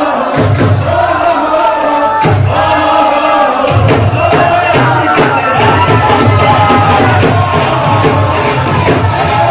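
Loud Indian wedding dance song with singing and a heavy bass beat, with a crowd audible under it.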